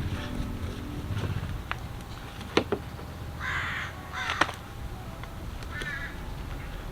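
A crow cawing: two harsh caws about three and a half and four seconds in, with a fainter call near the end, among a few sharp clicks.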